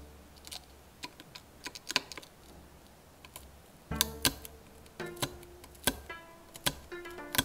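A needle tip pricking and cracking brittle dalgona honeycomb toffee along the cut line: a string of small, sharp, irregularly spaced clicks. Light background music notes sound from about halfway through.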